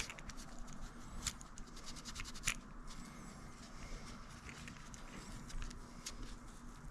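Hard fishing lures being handled and worked on: scattered sharp clicks and light scratching.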